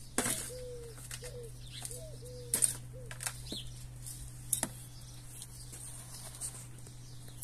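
A dove cooing in short, slightly falling notes repeated over and over. A few sharp knocks from a plastic plant pot being handled over potting mix, the loudest about two and a half seconds in.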